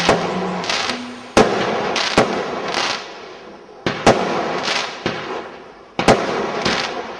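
Fireworks going off: a loud bang about every two seconds, with smaller pops between, each dying away in a crackling tail.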